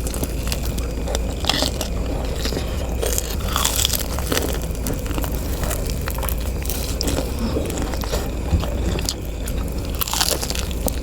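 Close-miked biting and chewing of jumbo cireng, fried tapioca snacks, with scattered crunches and crackles through the chewing over a steady low hum.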